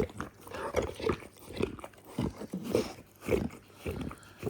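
Dogue de Bordeaux licking and snuffling close by: wet mouth sounds repeating about twice a second.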